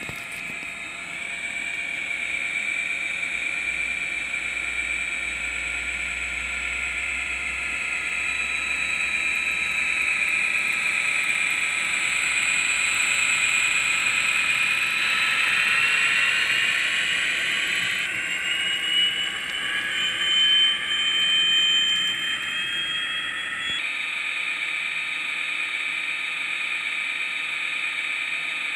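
Diesel engine sound from the Digitrax sound decoder in an HO Athearn Ready To Roll SD40-2 model locomotive, played through its small onboard speaker: a steady turbocharger whine over the prime mover as the locomotive pulls away. The pitch rises partway through, with a higher whistling tone climbing for several seconds before the sound changes abruptly near the end.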